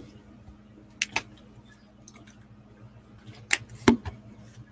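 A few sharp clicks and knocks of a lure and small tools handled on a workbench, a pair about a second in and another pair around three and a half to four seconds, over a faint steady hum.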